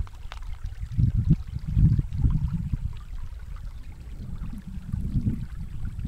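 Wind buffeting the microphone in uneven low gusts, strongest around one to two seconds in and again near the end, over faint lapping of calm sea water against shore rocks.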